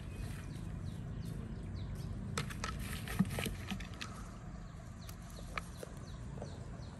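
A catfish thrashing in a small plastic bucket of water, a scatter of sharp knocks and slaps that is densest around the middle, over a steady low background rumble.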